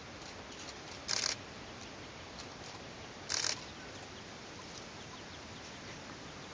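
Two short, loud rustles of dry leaf litter about two seconds apart, from ferruginous partridges scratching and pecking on the forest floor.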